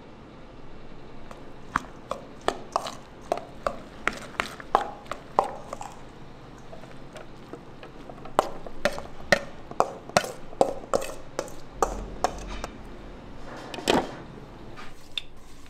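Knife chopping on a cutting board: two runs of quick, sharp strikes, about two to three a second, with one heavier knock near the end.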